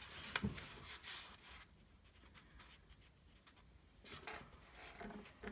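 A sheet of paper being folded and creased by hand: soft rustling and rubbing with a few small crinkles, fading for a couple of seconds in the middle and picking up again near the end.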